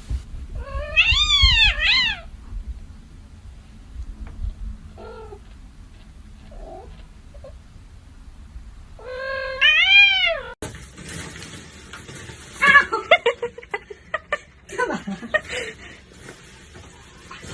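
Cat yowling: long drawn-out meows that rise and then fall in pitch, two near the start and a louder one about ten seconds in, with fainter short calls between.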